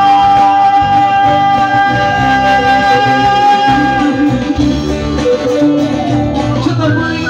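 Live band playing an instrumental passage with electric guitar, bass guitar and electronic keyboards, no singing. A long held note runs in the melody until about four seconds in, and a rising run of notes comes near the end.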